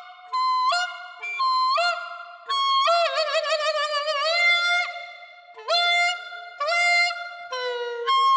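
Clarinet mouthpiece and barrel, detached from the rest of the instrument, blown on their own as a high reedy note, with cupped hands over the barrel's open end bending the pitch. Short notes, each scooping upward, come about once a second, with a longer wavering note from about two and a half seconds in.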